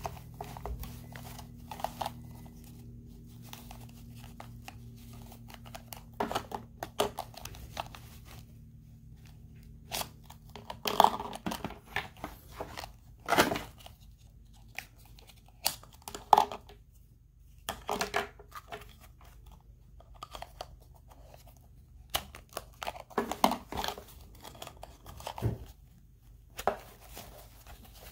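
Close handling noises as an action figure is dressed: cloth trousers rustle and crinkle, and a plastic boot rubs and clicks as it is worked onto the foot. The sounds come in irregular bursts, the sharpest a few single clicks.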